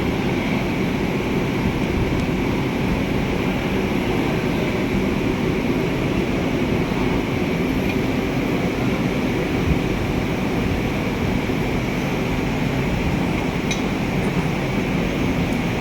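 Steady rumbling noise with a faint, even high whine over it and no distinct knocks or clanks.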